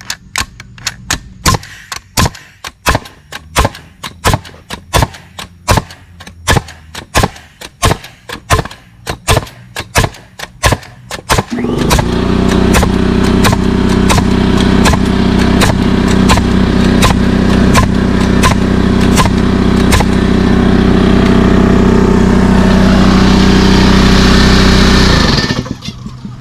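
A Paslode F325R pneumatic framing nailer firing rapidly, driving ring shank nails about twice a second. About 12 seconds in, the Masterforce 5-gallon 225 psi portable air compressor kicks on and runs steadily to recover pressure, then cuts off near the end.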